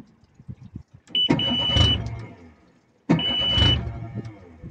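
Outboard motor's electric starter cranking the cold engine with the key pushed in for choke, in two short tries about a second apart. Each try is accompanied by a steady high beep from the remote control's warning buzzer.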